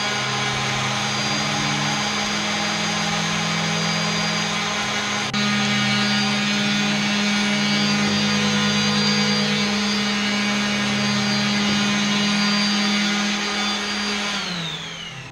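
Craftsman 113 table saw motor running at a steady speed, a high whine over a steady hum. It steps up in loudness about five seconds in, and near the end it is switched off, the whine falling as it spins down.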